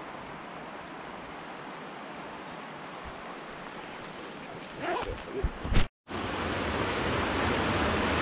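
Mountain stream rushing, a steady hiss of water. About five seconds in come a few bumps, then a brief dropout, after which the rushing water is louder.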